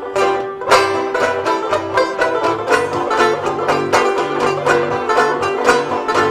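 Background bluegrass music led by a fast-picked banjo over a steady bass line.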